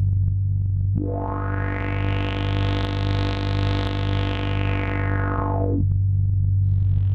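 Evolved Trilobite software-synthesizer patch being auditioned: a steady low drone, over which a pitched synth tone with many overtones enters about a second in, grows brighter, then mellows and stops near six seconds. A second, shorter swell of the same tone begins just before the end.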